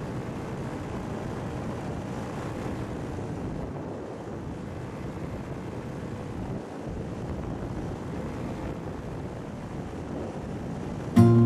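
Paramotor engine running steadily under a haze of wind on the microphone. Music with guitar cuts in suddenly near the end.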